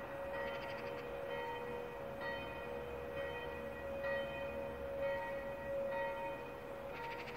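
Several church bells pealing together: overlapping strokes at different pitches, about one a second, over a steady hum from the ringing bells.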